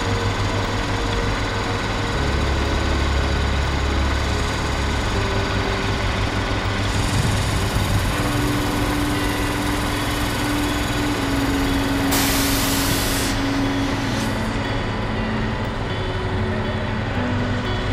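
Crane truck's engine running steadily while the crane hoists a sailboat, with a hiss lasting about a second roughly twelve seconds in.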